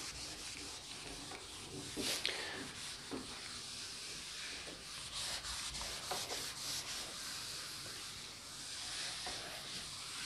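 Faint scratching of a pen writing on paper, in short uneven strokes.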